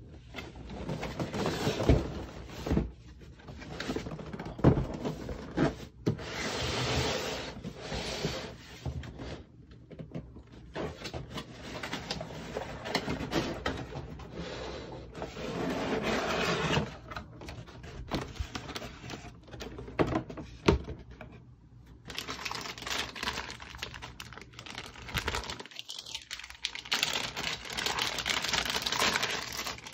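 Cardboard box being handled and opened: the flaps and packing slide, scrape and rustle, with a few sharp knocks. In the last several seconds a plastic bag crinkles as a part is pulled out of it.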